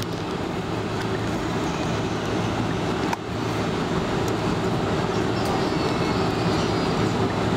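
Steady cabin noise of a Boeing 747-400 taxiing on the ground, its engines running at low taxi thrust: a continuous rumble with a low hum, heard from inside the passenger cabin.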